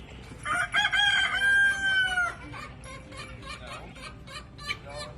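A rooster crowing once, loud, with a broken start and a long held final note that drops at the end. It is followed by a run of short, repeated clucking calls from the flock.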